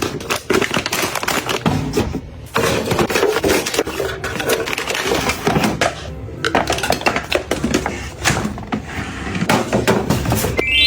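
Kitchen items clattering as they are handled and set down: a busy run of small hard knocks and clicks with rustling between, pausing briefly twice.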